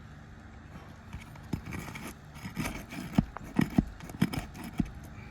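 Roof snake, a flat steel shingle-lifting bar, clicking and scraping under asphalt shingles as it breaks their seal strips: a string of sharp clicks starting about a second and a half in, the loudest in the middle.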